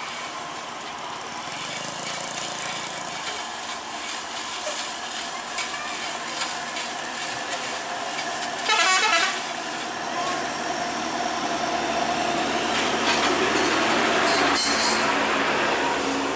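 Buses and trucks running on the road, the engine noise growing louder in the last few seconds. About nine seconds in comes a brief, loud warbling toot.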